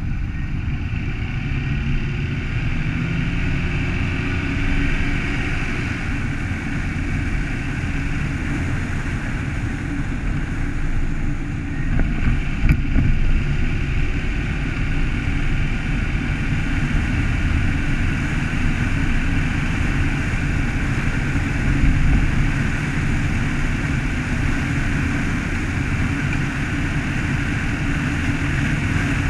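Car driving along a road: a steady low rumble of engine and tyre noise, with a brief knock about twelve seconds in.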